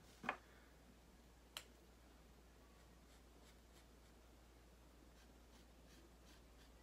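Sharpie marker drawing on a sheet of felt: faint scratchy strokes from about three seconds in. A short sound comes just after the start, and a sharp click about a second and a half in.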